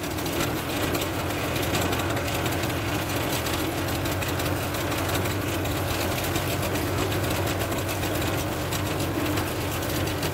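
A large engine running steadily with an even low drone over a constant hiss.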